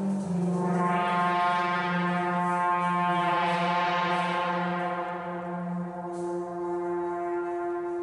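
Bohemian Cristal instrument, a colourful vertical Cristal Baschet-type glass instrument, played by stroking its glass rods. It gives sustained, overlapping, horn-like tones over a steady low drone. The sound grows brighter over the first few seconds, then mellows, with one tone held steadily through the second half.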